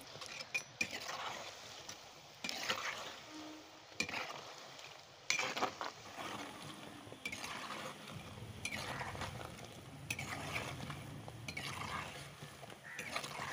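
Potato bondas sizzling as they fry in hot oil, with a metal spoon scraping and clinking against the frying pan several times as they are lifted out.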